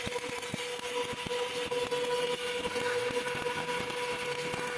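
Stick (shielded metal arc) welding arc crackling steadily as the electrode burns, with a steady hum underneath.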